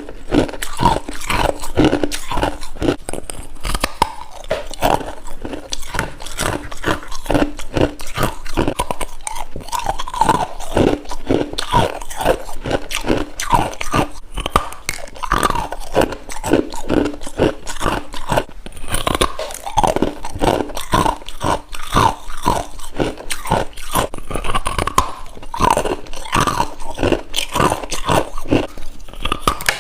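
Mouth biting and chewing soft freezer frost close to the microphone: a quick, continuous run of packed-ice crunches.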